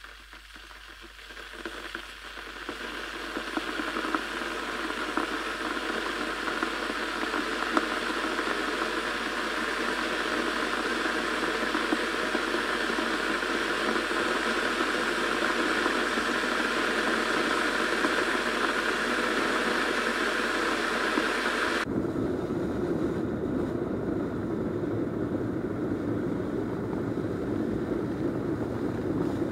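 Kettle heating water: a hiss and rumble that builds over the first few seconds, then holds steady. About 22 seconds in it changes abruptly to a deeper rumble with less hiss.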